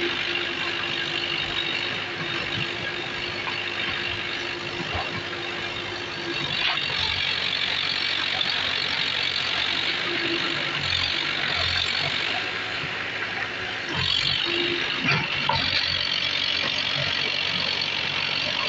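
Diesel engines of earth-moving machines, a backhoe loader and a tracked excavator, running steadily, with a steady hum that drops out about six seconds in and returns briefly twice, and scattered knocks.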